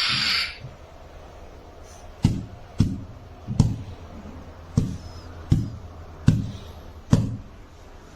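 Toy RGB duel lightsaber: a short hissing burst at the start, then seven sharp knocks with a short low ring, struck at uneven intervals over a steady low hum.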